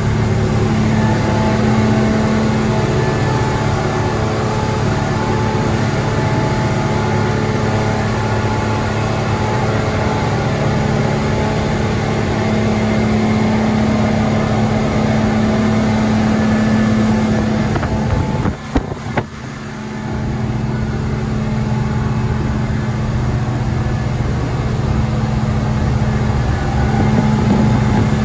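Twin Yamaha outboard engines running steadily at cruising speed, a level drone heard from inside the boat's wheelhouse over water rushing past the hull. The sound dips briefly about two-thirds of the way through.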